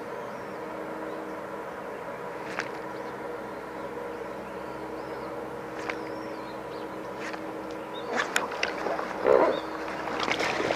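Splashing at the water surface for about two seconds near the end, loudest about nine seconds in, over a steady hum.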